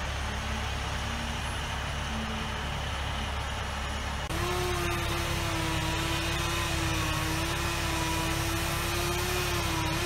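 Truck-mounted crane's engine running steadily. About four seconds in the sound changes sharply and a steady whine joins the engine while the crane holds up a tree trunk.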